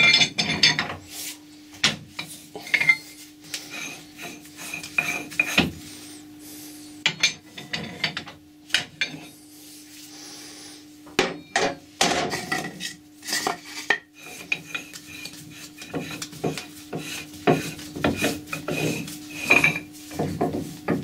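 Irregular metal-on-metal clanks, clicks and scraping as a chuck key works a heavy three-jaw chuck loose from a Colchester lathe's spindle, over a steady low hum.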